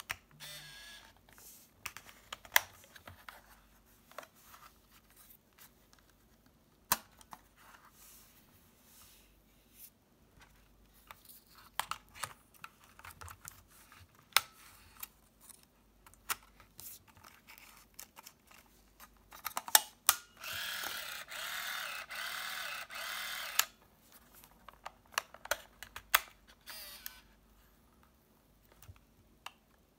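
Olympus SuperZoom 80G compact 35mm film camera being handled: scattered sharp plastic clicks and snaps from its back door and body. About two-thirds of the way through, its small built-in motor runs steadily for about three seconds, auto-winding the freshly loaded film.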